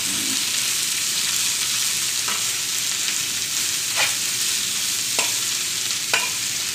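Sliced bamboo shoots sizzling steadily in hot oil in a frying pan as they are stirred, with four short clicks of the utensil against the pan.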